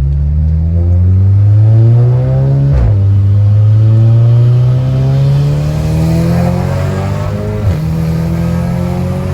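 Turbocharged Audi S3 four-cylinder engine under hard acceleration, rising in pitch through the gears, with a sudden break at an upshift about three seconds in and another near the end, each followed by the revs climbing again.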